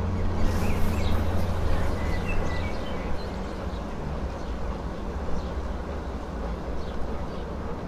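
Outdoor street ambience: steady traffic noise with a low engine rumble that stops a few seconds in, and small birds chirping.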